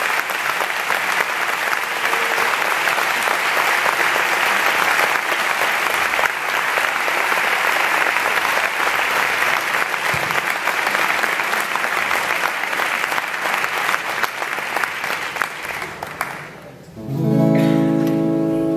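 Audience applauding, dying away about sixteen seconds in. A chord on a lap steel guitar then rings out and holds.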